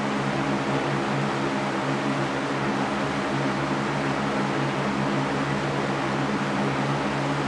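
Continuous white noise for sleep: an even, unbroken hiss with a steady low hum underneath, not changing at all.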